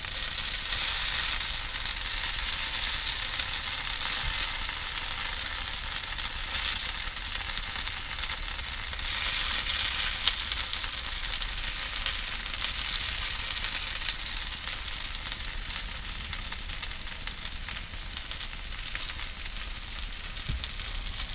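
Broccoli and cauliflower fritter mixture frying in coconut oil in a hot frying pan: a steady sizzle that swells a little now and then, with a few light clicks.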